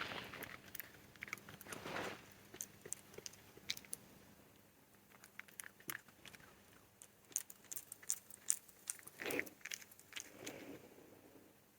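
A fox chewing and crunching carob dog treats: faint, irregular small crunches and clicks, with a few soft rustles.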